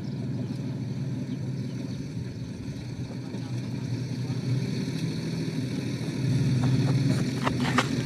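Dump truck's diesel engine running as the truck drives toward the listener over a dirt track, growing louder about six seconds in, with a few sharp clicks near the end.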